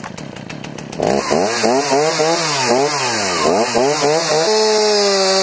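Stihl MS 290 two-stroke gas chainsaw, quite loud. It idles for about a second, is revved up and down several times, then is held at a steady high speed near the end.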